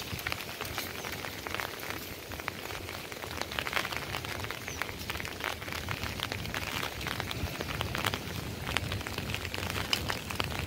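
Wind blowing on the microphone as a steady low rumble, with many irregular crackling taps over it.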